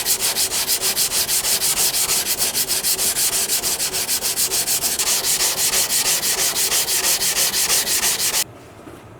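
Sakai Takayuki bunka blade being ground back and forth on a coarse 150-grit whetstone, in fast, even strokes of about six a second. It is grinding out the blunt edge left by a repair and restoring the edge's convexity. The scraping stops abruptly near the end.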